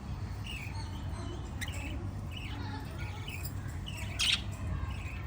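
Small pet parrots chirping in short scattered calls, with one louder, harsher squawk a little past four seconds in, over a steady low hum.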